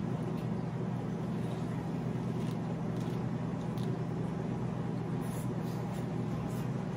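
A steady low hum, with a few faint crunches and chewing sounds from biting into crispy bánh xèo wrapped in lettuce.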